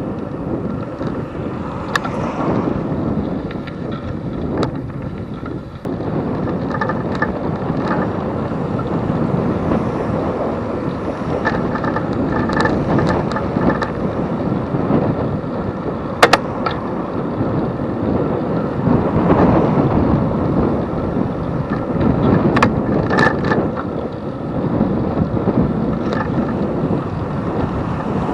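Wind rushing over the microphone of a bicycle-mounted camera while riding, with scattered clicks and rattles from the bike; a single sharp click stands out about sixteen seconds in.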